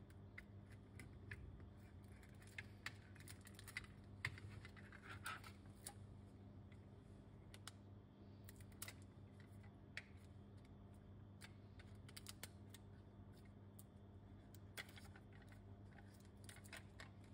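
Faint, scattered small clicks and rustles of clear sticky tape being handled and pressed onto a 3D-printed plastic gear train's frame, over a low steady hum.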